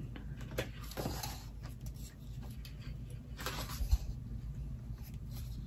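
Pages of a thick hardcover book being handled and turned: soft paper rustles and swishes, with a short low bump about four seconds in.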